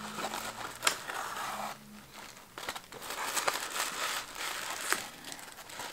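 Tissue paper and bubble-wrap packaging crinkling and rustling as hands pull a small wrapped gift out of a box. It comes in two spells with a short lull about two seconds in, and a few sharp crackles.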